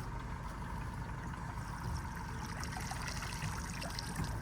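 Water trickling and dripping off a just-hauled lobster net, over a steady low hum.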